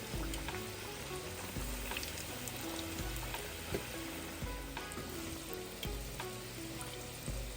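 Aloo chop (gram-flour-battered potato patties) sizzling as they deep-fry in hot oil, with a few light utensil clicks.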